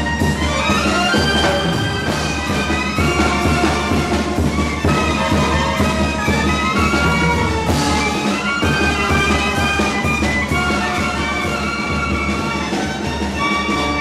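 Recorded music: a brass-like horn melody over a steady bass line, playing without a break.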